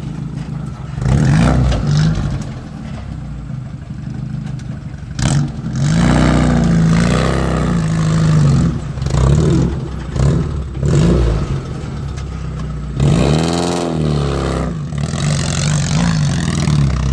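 Engine of a caged off-road 4x4 pickup revving in repeated surges as it pulls away over a rutted dirt track, the note rising and falling several times.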